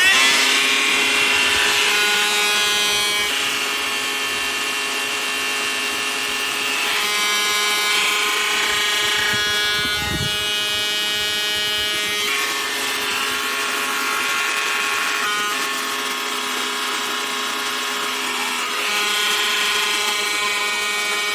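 Handheld car vacuum's electric motor running with a steady whine, its pitch shifting slightly now and then.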